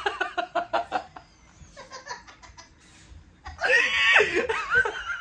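A young man laughing heartily: a quick run of ha-ha bursts, a quieter stretch, then a loud, high laugh about three and a half seconds in.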